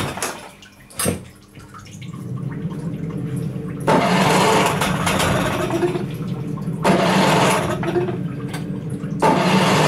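Allfa CG 9.9 hp outboard motor being started on its electric starter. From about four seconds in it cranks and runs in loud spells of two to three seconds, broken twice by short drops. A single click comes about a second in.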